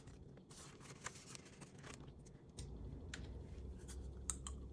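Faint scattered taps and light rustles of a hand handling a cash-envelope binder's plastic pages, over a low steady room hum that grows a little louder about halfway through.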